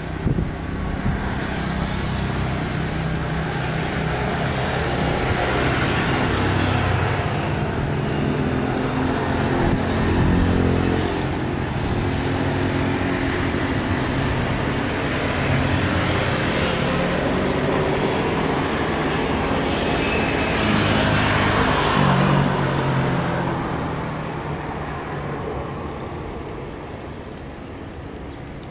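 Boeing 777-300ER's GE90 jet engines running loudly as the airliner rolls out along the runway after landing, with a deep rumble under the noise; the sound fades over the last few seconds as it moves away.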